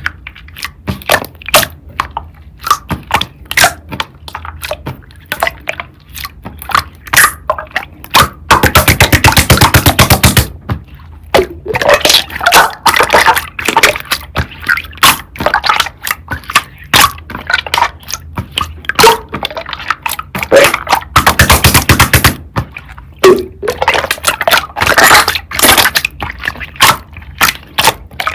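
Slime being squished, poked and stretched by hand: a steady stream of sharp clicks and pops as trapped air bursts, with two runs of very rapid crackling clicks, about a third of the way in and again near three quarters in, and wetter squishing swells between them.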